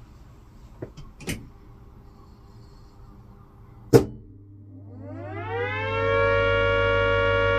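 A sharp click about four seconds in, then a siren winds up, rising in pitch for about two seconds before holding one steady, loud tone.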